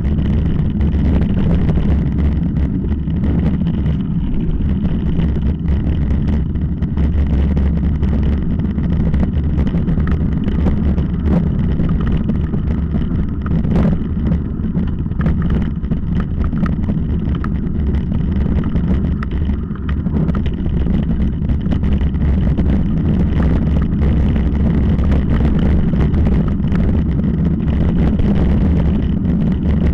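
Riding over a rocky dirt trail heard from a bike-mounted camera: a steady low wind rumble on the microphone, with many short clattering knocks from the rough ground.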